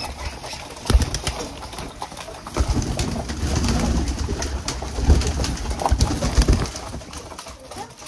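A crowded flock of domestic pigeons flapping and jostling in a small walled pen: repeated wingbeats and sharp wing claps, with cooing among them.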